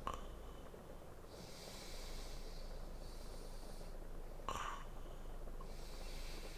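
A man breathing slowly and deeply in his sleep, with a short snort right at the start and another about two-thirds of the way through.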